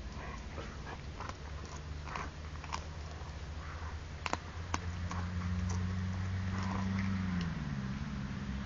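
A borzoi gnawing on a bone, its teeth making irregular crunching clicks. A steady low drone sits beneath and drops in pitch near the end.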